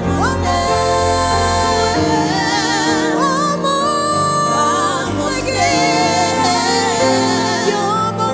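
Gospel praise music: a voice holding long, wavering notes without clear words over sustained instrumental chords and bass.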